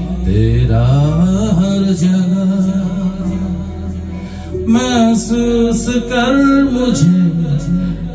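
Male vocalist singing a Hindi song into a microphone over an instrumental backing, with a rising sung glide about a second in and a long held, wavering note from about the middle.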